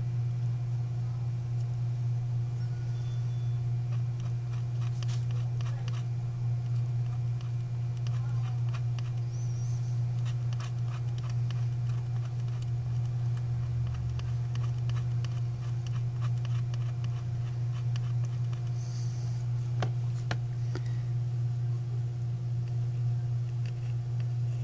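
Steady low electrical hum, with faint scattered clicks and scrapes of steel tweezers picking at the cracked camera lens glass on the back of a Samsung Galaxy S7. The clicks come in clusters, the first a few seconds in and another about three-quarters through.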